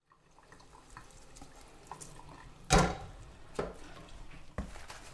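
A few knocks and clatters of objects being handled in a small room, the loudest about two and a half seconds in, with two lighter ones after.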